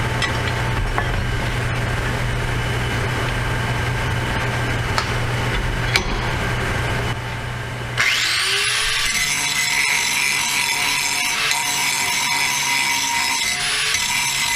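Handheld angle grinder grinding a bevel into the edge of a broken steel plow moldboard piece, running steadily. About eight seconds in the sound dips briefly, then the grinder's whine rises again and grinding carries on.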